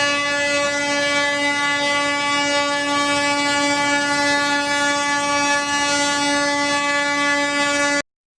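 Indian Railways WAP4 electric locomotive's horn sounding one long, steady blast on a single pitch. It cuts off suddenly near the end.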